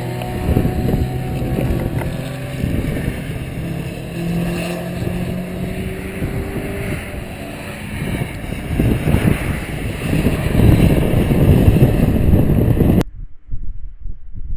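Cars on a racing circuit lapping past, with engine tones falling in pitch and fading as they go by, over heavy wind rumble on the microphone that gets louder in the second half. Near the end the sound cuts off abruptly to a much quieter, duller recording.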